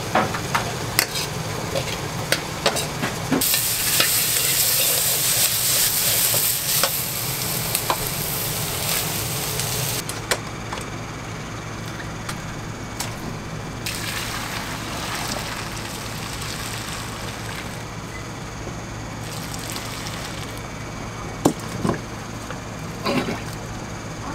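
Food frying and sizzling in a hot wok while being stirred, with sharp clicks of a metal utensil against the pan. The sizzle swells loud from about three seconds in, then drops to a lower hiss about ten seconds in.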